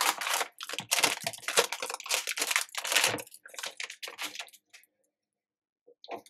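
Anti-static plastic bag crinkling and rustling as a new laptop battery pack is pulled out of it. The crackling stops about five seconds in.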